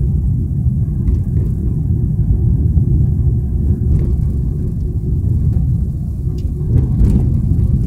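Steady low rumble of a car on the move, heard from inside the cabin: road and engine noise, with a few faint clicks.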